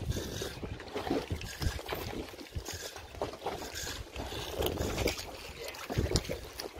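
Wind buffeting the microphone and water splashing and trickling against the hull of a small open boat at sea, uneven and without any steady engine hum.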